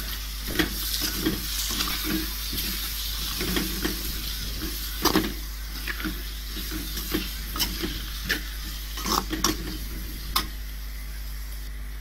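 Shredded cabbage sautéing in oil and masala in an aluminium kadai, sizzling steadily, while a perforated metal ladle stirs it, clicking and scraping against the pan at irregular moments. The cabbage is being cooked down until soft.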